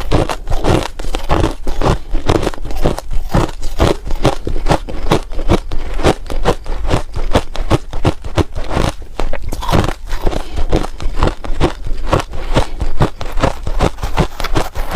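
Close-up crunching of ice being bitten and chewed: a fast, loud, irregular run of sharp crunches, several a second.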